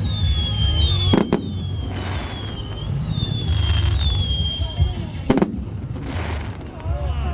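Fireworks display going off: a steady low rumble of booms, with two sharp bangs about a second in and about five seconds in, and short high whistles that fall in pitch, repeating about once a second.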